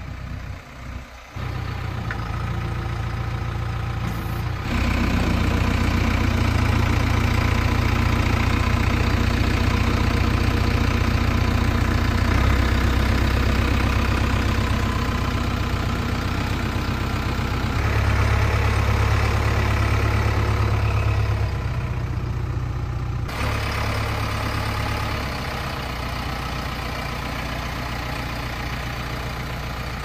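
JCB 3DX backhoe loader's diesel engine running steadily. It grows louder about five seconds in and eases back after about 23 seconds.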